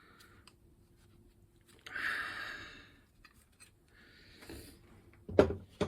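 Handling noises: a few faint clicks, a hiss lasting about a second from about two seconds in, then two sharp knocks near the end, the first the loudest, as the parts are handled and put down.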